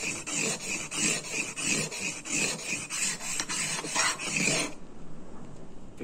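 A small Victorinox knife blade stroked rapidly back and forth on a water-lubricated 1000-grit diamond sharpening plate: a rhythmic rasping of about three strokes a second that stops near the end. The strokes are raising a burr along one side of the edge.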